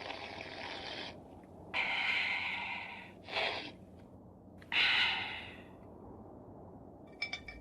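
Four breathy huffs or sniffs, each about a second long with short gaps between, made by a voice actor playing the stork straining to eat its soup; a few quick clicks near the end.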